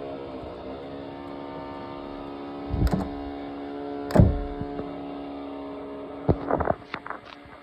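An electric power tool's motor from renovation work, running steadily with a brief dip in speed near the start. Loud sharp knocks come about three and four seconds in, and a quick cluster of knocks near the end as the motor stops.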